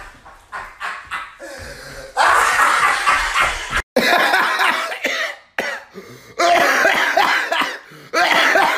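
A man laughing loudly in breathy bursts, then, after a sudden break about four seconds in, a raspy laugh that turns into hacking coughs: an imitation of a heavy smoker's laugh.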